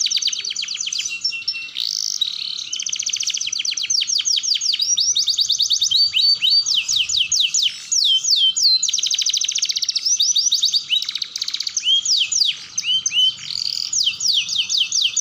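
Domestic canary singing a long, unbroken song of fast rolling trills, each run a quick string of repeated falling notes, broken now and then by a few slower, separate whistled notes.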